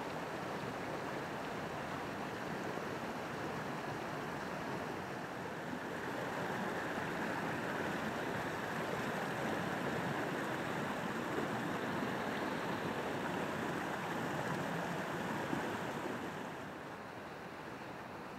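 Small mountain torrent rushing over boulders through a cascade of white water, a steady rush. It grows a little louder in the middle and falls quieter about three-quarters of the way through.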